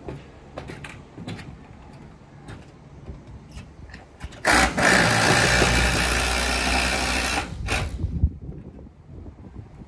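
Power drill running for about three seconds as it drives a screw into metal roofing, with a short second burst just after. Light clicks and knocks come before it.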